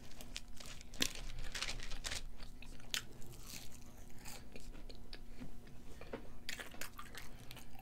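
Close-miked chewing and biting of french fries dipped in ketchup: irregular sharp clicks and crackles of mouth sounds.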